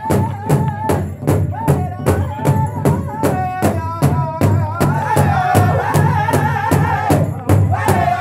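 Powwow drum group singing: several drummers strike one large hide powwow drum in unison, about two and a half beats a second, under high-pitched singing. A single high voice leads at first, and more voices join about five seconds in.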